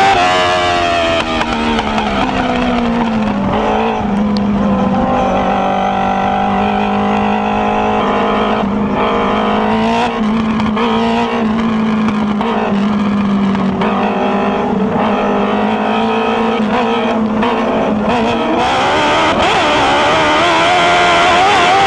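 Dwarf car's motorcycle-derived engine heard from the onboard camera during a race. The engine note drops in the first couple of seconds, holds steady at a lower pitch for a long stretch, then climbs again as the throttle opens near the end.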